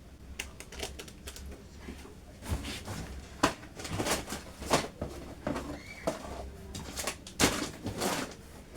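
Rustling, crinkling and knocks of grocery packages being handled and set down, with a few sharper clatters. A bird chirps briefly in the background about six seconds in.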